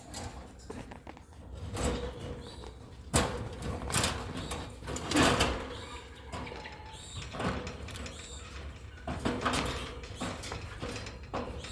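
Lovebird breeding cage being opened and handled: a series of scrapes and knocks, the loudest about three, four and five seconds in and again near the ninth second.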